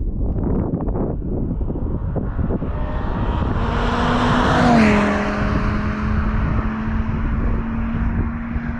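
An Audi RS3 (8Y) with Unitronic midpipes (secondary cats deleted) driving past. Its turbocharged 2.5-litre five-cylinder exhaust swells to a peak about five seconds in, and the engine note drops in pitch as it passes, then fades.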